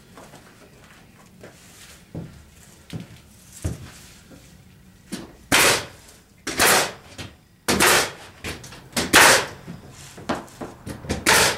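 Pneumatic air nailer firing nails through plywood subflooring into the floor joists: five loud sharp shots, each with a short puff of exhaust air, spaced a second or so apart in the second half. Before them come a few lighter knocks.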